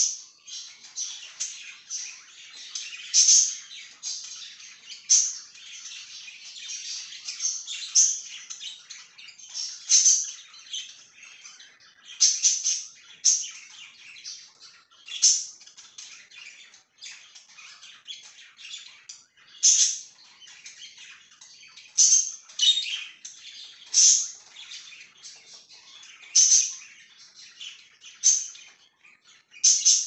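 A flock of budgerigars chirping and chattering, a dense run of short high chirps with louder, sharp calls breaking through every couple of seconds.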